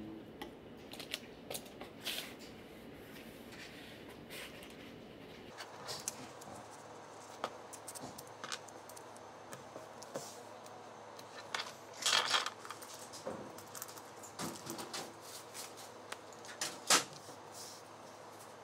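Scattered small clicks, knocks and rustles of a sheet of paper and small objects being handled on a desk, with a louder paper rustle a little past the middle and a sharp click near the end.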